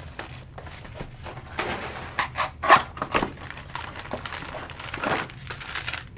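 Trading-card pack wrappers crinkling and tearing as packs are ripped open and handled, in a run of irregular crackles and short rips.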